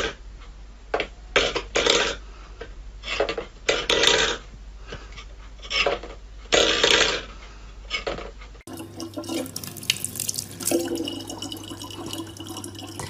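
Stainless steel pet bowl being pawed across a wooden floor, scraping and clattering several times in short strokes. After a cut about two-thirds of the way in, a faucet runs steadily into a plastic bottle.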